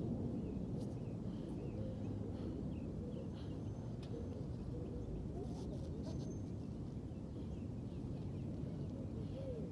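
Outdoor ambience: a steady low rumble with faint bird chirps scattered throughout.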